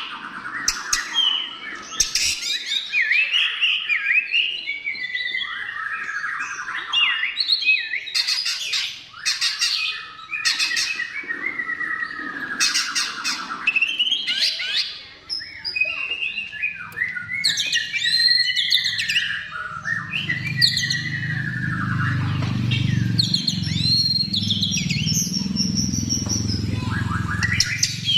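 White-rumped shama singing a continuous, varied song of sweeping whistles and trills mixed with rattling clicks. A low rumble joins underneath about two-thirds of the way in.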